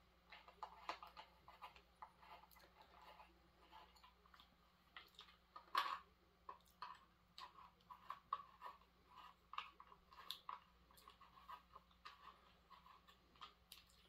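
Faint, scattered clicks and scrapes of a screwdriver and hands working on a chainsaw's plastic clutch cover and chain brake assembly, with one louder click about six seconds in.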